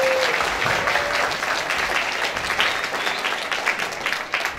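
An audience applauding, the clapping thinning out near the end.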